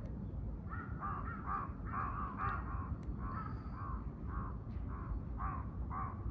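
Crow cawing over and over in a quick run of short, hoarse caws that start about a second in, over a steady low background rumble.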